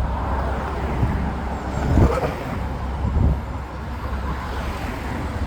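Road traffic on a busy road: a steady low rumble of passing vehicles, swelling briefly about two and three seconds in.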